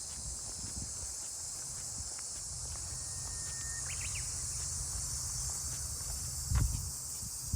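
A steady, high-pitched chorus of insects droning. There is a short chirp about halfway through and one dull thump near the end.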